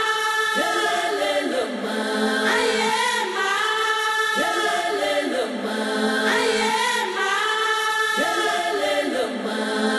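Choral music: a group of voices sings a chant-like phrase over a low held note, the phrase repeating about every four seconds.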